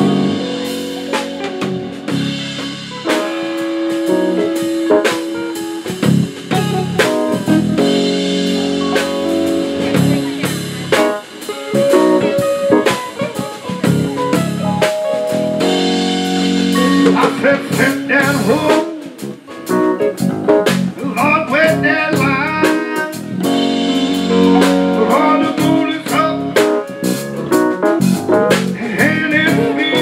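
A live funk band playing an instrumental passage: drum kit, electric and acoustic-electric guitars, bass guitar and keyboard.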